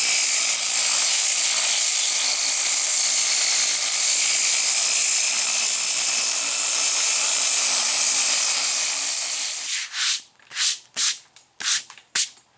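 Dual-action (DA) sander with 80-grit paper sanding fiberglass filler on a dash pad: a steady hiss with a faint motor hum for about ten seconds. It then stops and comes back in five or six short bursts.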